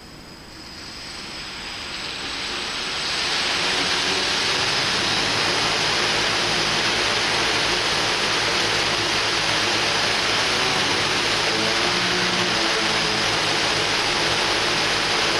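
The six electric motors and propellers of a large hexacopter spinning up over about three seconds, then running steadily at about half throttle while the craft is held down: a loud, even whir and rush of prop wash.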